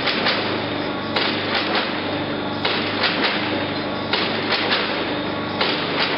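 Wave-tank test run: water sloshing and a steady low machine hum, cut by clusters of two or three sharp knocks about every second and a half, in time with the waves.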